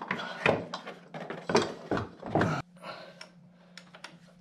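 Irregular metallic clinks and clunks of metal parts and tools being handled, several sharp knocks in the first two and a half seconds, over a faint steady low hum.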